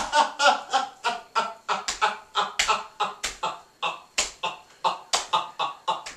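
A young man laughing hard in rapid, breathy ha-ha bursts, about four a second.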